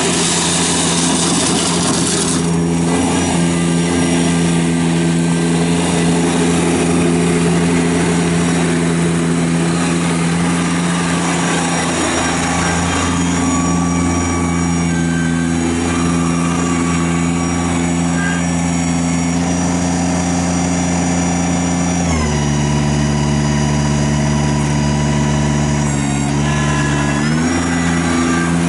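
Kubota BX1860 sub-compact tractor's three-cylinder diesel engine running steadily as the tractor drives around. The engine note drops about twenty-two seconds in and climbs back up near the end.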